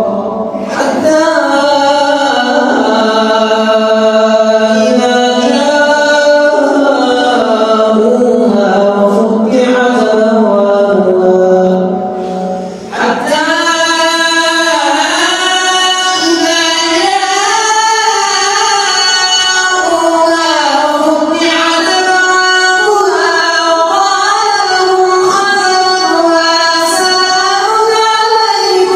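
Quran recitation (tilawah) by a prayer leader in a long, ornamented melodic chant. It comes in two drawn-out phrases, with a short break for breath about twelve seconds in.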